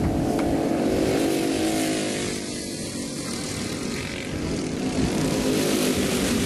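A pack of racing karts with single-cylinder four-stroke engines (Briggs & Stratton LO206 and clone engines) running together at speed. Their engine notes drop and get softer about halfway through, then climb again as they pull away.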